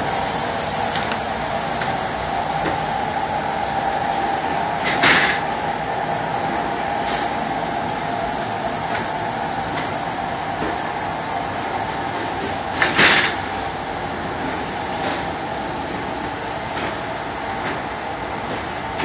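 Automatic flatbed screen-printing machine running: a steady mechanical drone broken by two short loud bursts about eight seconds apart and a few fainter knocks.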